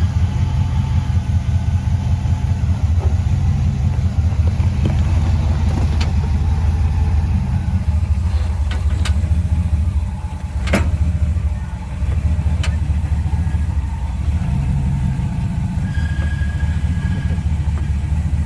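Jeep engine running steadily at low revs, with its level dipping briefly a little past halfway. Several sharp knocks over the second half, the loudest a little past halfway.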